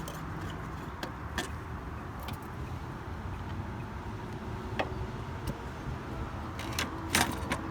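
A few light clicks and taps from hands and tools working on a car's front grille, scattered through the stretch with a small cluster near the end, over a steady low background rumble.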